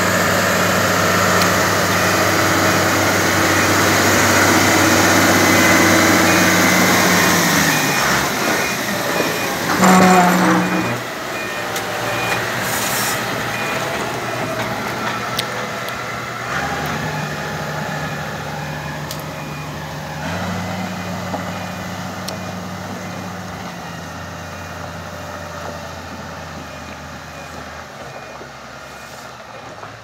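Motor grader's diesel engine running as the machine reverses, its reversing alarm beeping steadily through the first half. A brief louder surge comes about ten seconds in, and the engine fades toward the end as the grader moves away.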